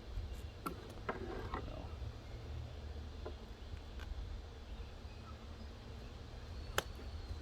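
Scattered light clicks and knocks of the new orbital sander and its parts being handled, with one sharper click near the end, over a steady low rumble.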